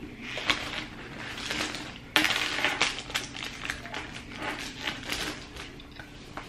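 Thin plastic carryout bag crinkling and rustling as hands rummage in it, a quick run of crackles that starts abruptly about two seconds in and carries on until near the end.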